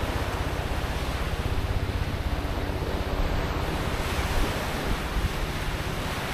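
Small waves washing up onto a sandy beach, a steady hiss of surf, with wind buffeting the action camera's microphone.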